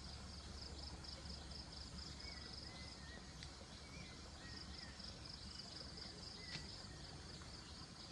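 Faint outdoor ambience of insects trilling, a high buzz pulsing rapidly and steadily, with a few short faint chirps around the middle.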